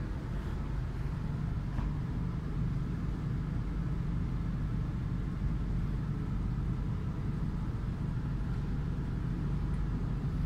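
Steady low rumble inside a Shanghai Metro Line 15 subway carriage with its doors closed.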